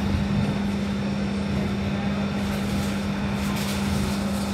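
BN coastal tram running, heard on board: a steady hum with an even rumble of noise.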